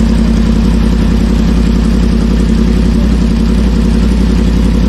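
Yamaha MT-10's 998 cc crossplane inline-four engine idling steadily, at an even speed with no revving.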